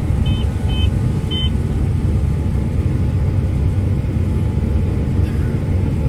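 Claas Lexion 8600 combine running steadily while harvesting corn, heard from inside the cab as a low rumble. Three short electronic beeps come from the cab in the first second and a half.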